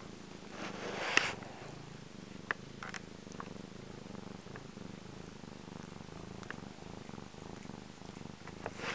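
Black domestic cat purring loudly and steadily, a continuous low rumble. About a second in there is a brief rustle ending in a sharp click.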